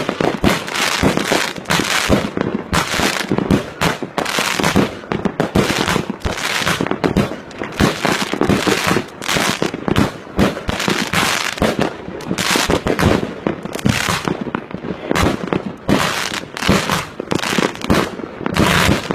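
New Year fireworks going off in a continuous barrage of overlapping bangs and crackles, with no break.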